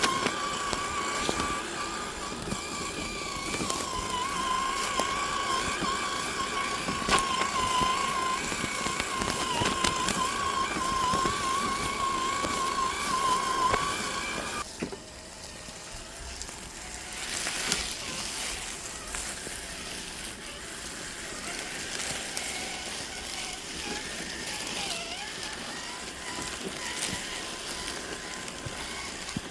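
Axial SCX10 III RC crawler's electric motor and gears whining, the pitch wavering as the throttle changes. It cuts off abruptly about halfway through, leaving a quieter hiss of background noise.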